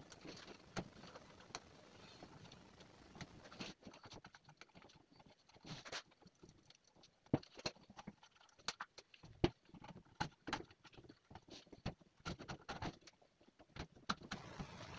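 Faint, irregular clicks, taps and scrapes of an old gasket being peeled and picked off the flange of a steel automatic-transmission oil pan by gloved hands.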